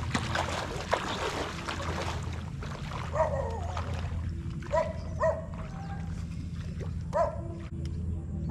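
Legs wading and splashing through knee-deep floodwater for the first couple of seconds, then a dog barking four short times.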